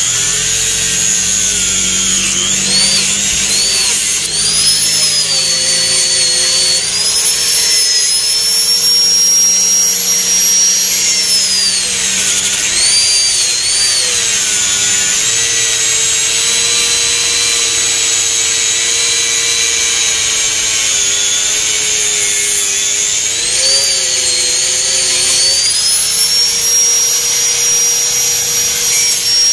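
Handheld electric angle grinder running continuously as it cuts along the edge of a fibreglass loster mould to open it. The motor whine sags in pitch several times as the disc bites into the mould under load and rises again each time it frees up.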